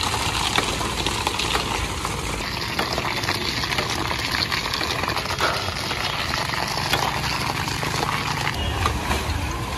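Busy street-side noise: a steady low hum and hiss of running machinery and traffic, with a few light knocks and clicks.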